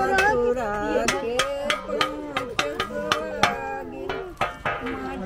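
Voices singing a folk song, with a drum beating along about three times a second.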